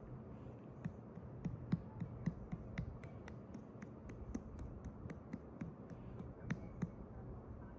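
Human stomach rumbling: a fast run of small gurgling pops and clicks, about three or four a second, over a low steady rumble.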